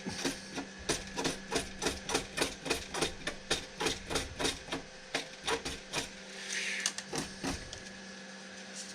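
A pocket-knife blade scraping over a welded splice in plastic 3D printer filament to smooth the joint, in quick, even strokes about three a second that stop about seven and a half seconds in. A faint steady hum runs underneath.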